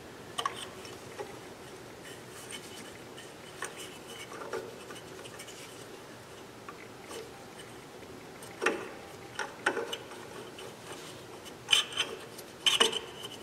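Scattered clicks, taps and light scraping of metal and plastic parts being worked loose as the cover comes off the combustion-air blower of an Espar D5WSC coolant heater. There is a sharper knock about nine seconds in and a quick run of clicks near the end.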